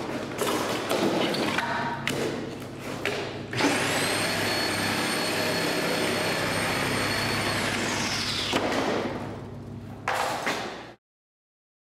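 Power saw cutting through sculpture material with a loud, pulsating buzz, broken by knocks in the first few seconds. It then runs steadily with a high whine that falls in pitch as the saw slows, and the sound cuts off suddenly near the end.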